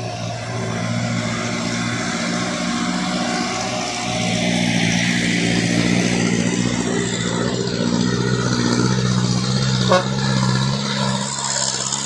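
Diesel engines of heavily loaded light trucks climbing: a truck's engine pulling away, then a Hino Dutro's engine labouring uphill as it comes close, growing louder. A sharp click sounds about ten seconds in.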